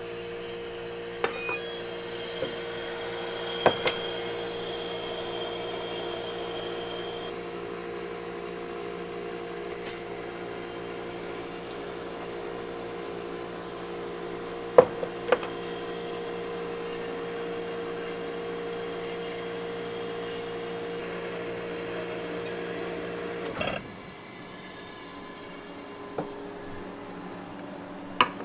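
Milk bingsu ice-flake machine running with a steady hum, with a few light clicks and knocks; the hum cuts off about 24 seconds in.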